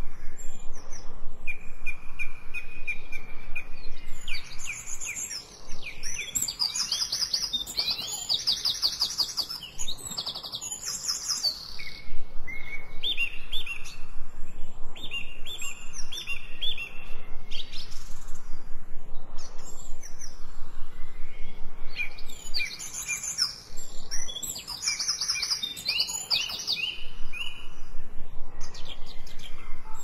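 Songbirds singing: rapid high trills alternating with runs of short repeated whistled notes. The busiest stretch of song comes round again about twenty seconds later.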